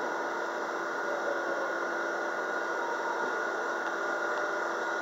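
MBTA Red Line subway car moving through a station, heard from inside: steady running noise from wheels and rails with a steady whine from the car's motors.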